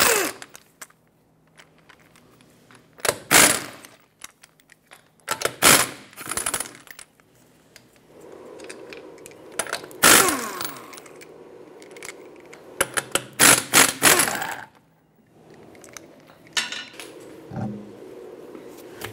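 Pneumatic impact wrench rattling lug nuts loose in a series of short bursts a few seconds apart, its pitch falling away as each burst ends. A few lighter knocks follow near the end.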